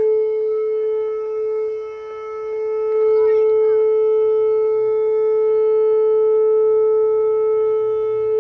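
Whelen WPS-2809 electronic outdoor warning siren sounding a steady, unbroken tone during a test. Its loudness dips briefly about two seconds in, then holds level.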